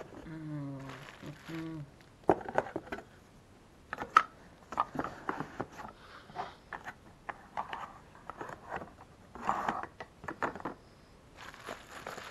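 Telescope parts being handled and set down in a cardboard box: a run of sharp knocks and clicks, with bubble wrap crinkling near the end. A brief hummed voice sound comes at the start.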